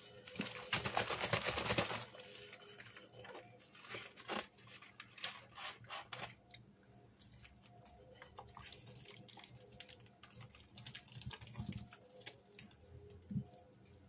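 Liquid poured from a bottle onto powder-coated cleaning sponges in a plastic tub, with wet crackling and pattering; a dense burst of crackling about half a second in is the loudest part. Near the end a soaked sponge is pressed by hand, giving a few soft squelching thuds.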